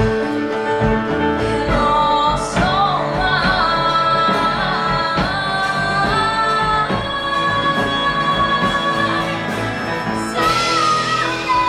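A woman singing a musical-theatre song into a microphone with a live band, holding several long notes.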